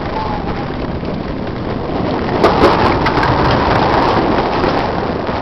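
Mountain bike descending a rough dirt and rock trail: tyres rolling over gravel with the bike rattling and wind buffeting the helmet-mounted microphone, with a cluster of sharp knocks about two and a half seconds in.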